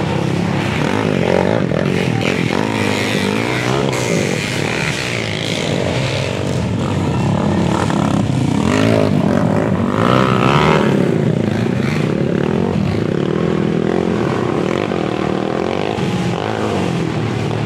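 Dirt bike engines running and revving as riders race over a muddy track, with several engines overlapping and their pitch rising and falling with the throttle.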